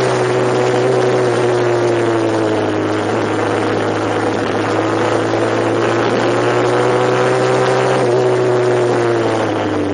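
Vehicle engine running steadily, its pitch falling slightly and then rising again as the revs change.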